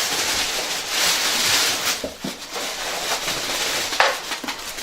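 Cardboard box and packaging rustling and scraping as it is handled, swelling about a second in, with a sharp knock about four seconds in.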